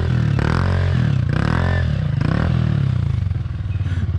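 Motorcycle engine revved in several short bursts as the rider throttles to swing the rear wheel around, with clattering and scraping from the bike.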